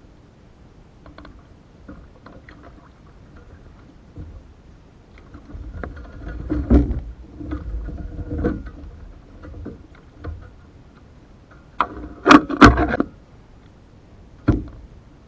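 A canoe's hull knocking and rubbing as it is paddled. A louder stretch of hollow bumping and sloshing comes in the middle, and a quick cluster of sharp hollow knocks about twelve seconds in is the loudest part.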